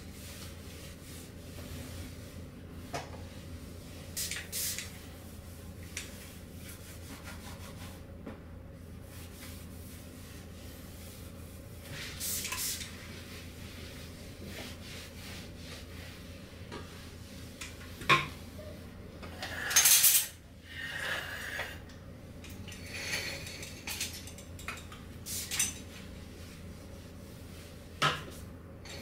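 Dishes and cutlery being handled, clinking and knocking against each other now and then, with the loudest clatter about two-thirds of the way through.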